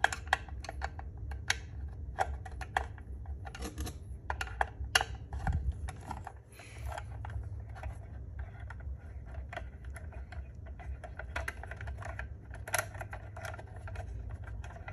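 Small screwdriver turning a screw out of a plastic fire alarm sounder housing: irregular light clicks and ticks of the tip and handle, over a low steady hum.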